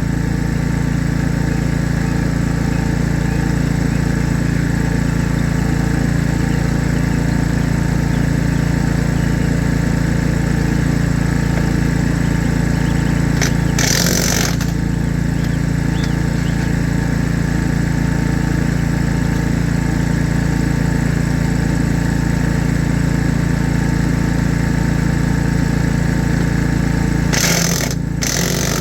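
An engine running steadily with a fast low pulse, broken twice, about halfway through and near the end, by a short hiss-like burst of noise lasting about a second.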